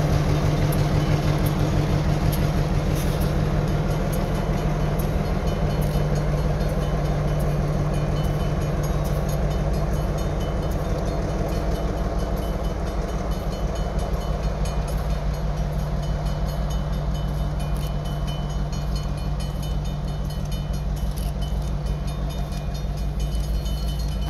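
Diesel locomotive engine running steadily with a deep drone as the unit moves away along the track, the sound slowly fading.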